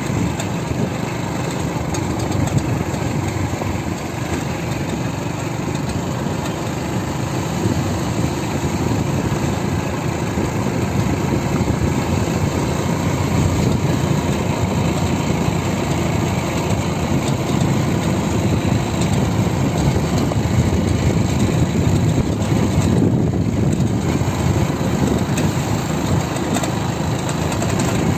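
Motorcycle engine running steadily as the bike rides along at an even pace, heard from the rider's seat.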